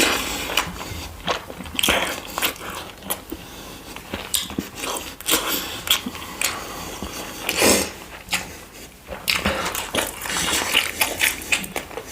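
Close-miked eating: irregular biting, crunching and chewing sounds, with wet mouth smacks.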